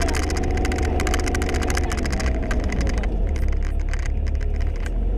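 Sherp off-road vehicle's diesel engine droning steadily, heard from inside the rear passenger cabin, with a rapid steady rattling of the body over it.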